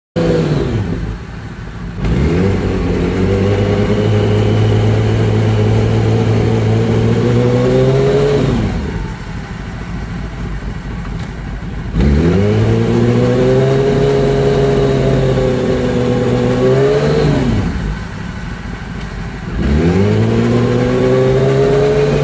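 Yamaha R1's inline-four engine revving up and holding a steady speed three times, dropping back in revs in between as the bike is shifted up through the gears.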